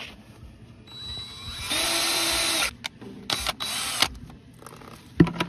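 DeWalt 20V cordless drill boring out a broken exhaust manifold stud in a 1947 Ford 8N engine. The motor winds up about a second in, runs steadily for about a second, stops, then comes in a few short bursts as the bit works through the stud.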